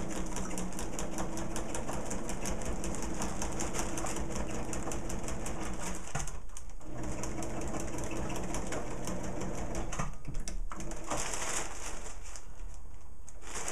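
Sewing machine running at speed, stitching a long seam through the rolled-up layers of a parafoil kite: a steady hum with a fast, even patter of stitches. It stops briefly twice, about six and ten seconds in.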